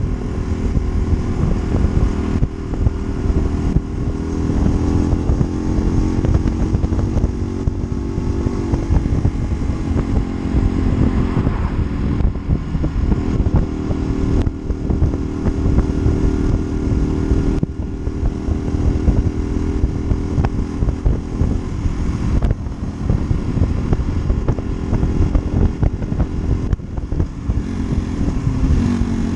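Honda Varadero 125 V-twin motorcycle engine running under way, its note rising and falling several times with the throttle and gears, over wind rumble on the microphone.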